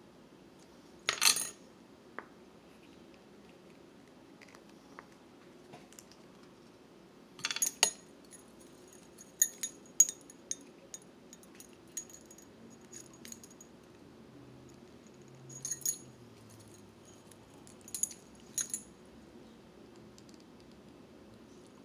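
Metal spinnerbait blades and wire clinking and jingling as the lure is handled and turned in the fingers. The clinks come in short irregular clusters, each with a brief high ring, the loudest about a second in and around eight and ten seconds.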